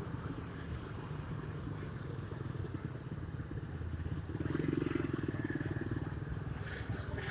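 Small motor scooter engine running while riding through city traffic, swelling louder for a second or two about halfway through.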